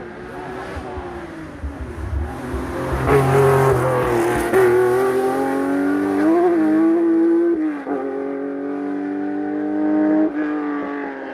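Rally Porsche 911 SC's air-cooled flat-six accelerating hard past, its pitch climbing through the gears with sharp drops at upshifts, clearly about eight and ten seconds in.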